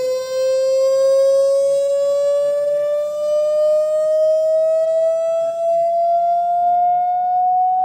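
Samsung TV's built-in speakers playing a slowly rising test tone, gliding from about 500 to about 700 Hz. A creaking buzz rides on the tone: the speakers creak through this range, and the overtones thin out near the end as the tone nears 700 Hz.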